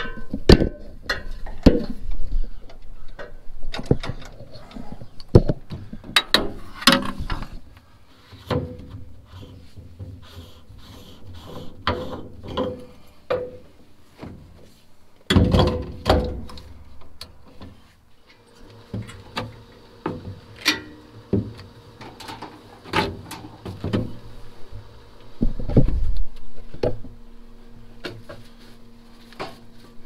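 Irregular metal knocks, clanks and clicks from climbing onto and servicing a farm machine, with heavier thumps about halfway through and again a few seconds before the end. A faint steady hum comes in during the second half.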